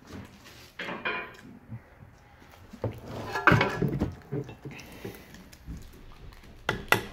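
Brembo brake caliper being worked off its disc and handled: metal scraping and clunks, loudest about three and a half seconds in, with a few sharp clicks near the end.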